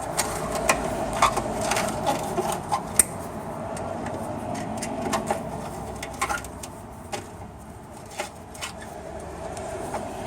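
Electric drill running steadily in the steel of a broken, rusted crossmember bolt, with many small sharp metallic clicks and rattles from the metal bits.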